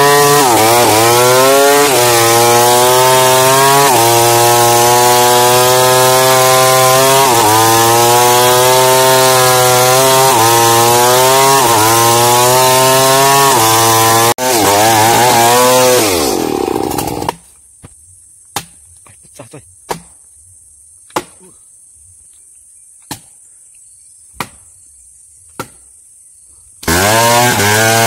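New West 707 two-stroke chainsaw cutting into a tree trunk at high revs, its engine note sagging repeatedly as the chain bites into the wood and recovering. About sixteen seconds in the saw winds down and stops; about ten seconds follow with only scattered sharp clicks, then the saw is back at full revs near the end.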